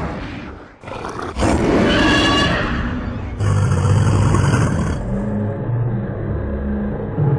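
Fan-made Godzilla roar sound effect: a loud, pitched monster roar starts about a second and a half in, then gives way to a low, steady rumble.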